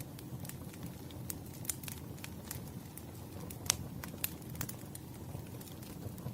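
Wood fire crackling: irregular sharp pops and snaps over a low, steady rumble, with one louder snap near the middle.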